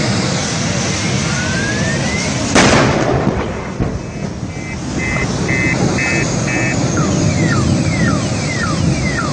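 A single sharp explosion from the burning vehicle about two and a half seconds in, over steady loud noise. A car alarm then sets off: a run of about six short beeps, then a repeating falling chirp about two a second.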